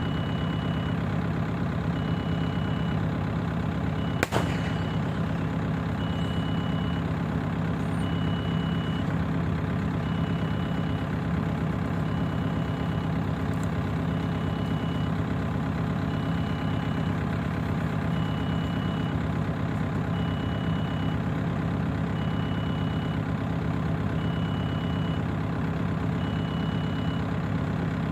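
JCB backhoe loader's diesel engine running steadily, with its reversing alarm beeping about once a second. A single sharp knock about four seconds in.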